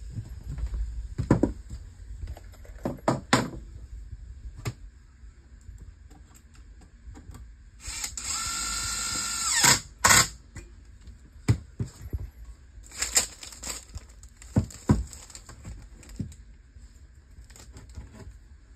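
Cordless drill-driver toe-screwing a wooden stud: the motor runs steadily for about two seconds around the middle, rising slightly before it stops with a click. Scattered knocks and clatter from handling the wood and tools come before and after.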